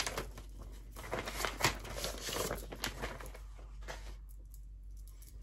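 Paper sheets rustling and crinkling as they are unfolded and handled, busiest for the first few seconds and dying down after about four seconds.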